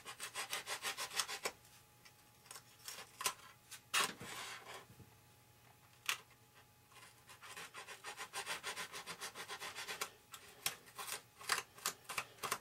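A small hand tool rubbing and scraping at the edge of a foam model-airplane wing's wheel well, trimming it a hair so the retracted tire fits. Quick back-and-forth strokes, about five a second, come in short runs with pauses and a few single louder scrapes between.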